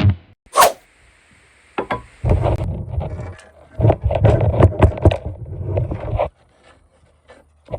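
Hand work on an air horn's cover and parts: a sharp click about half a second in, then a few seconds of irregular scraping and knocking that stop suddenly.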